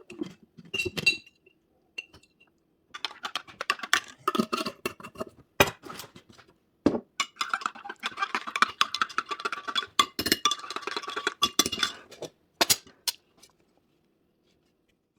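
Dishes and cutlery clinking and knocking, with a couple of short ringing clinks near the start and a denser run of clatter through the middle; the sounds stop a couple of seconds before the end.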